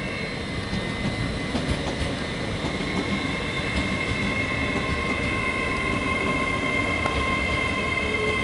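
Avanti West Coast Class 805 Evero passenger train running into the platform and slowing, with a steady rumble and clatter from its wheels on the rails. Steady high squealing tones grow louder from a few seconds in.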